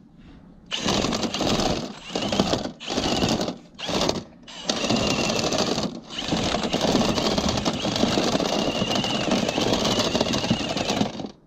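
Drill-driven rotary cleaning brush rattling as it spins inside a lint-clogged dryer vent duct. It starts and stops several times over the first six seconds, then runs steadily and cuts off just before the end.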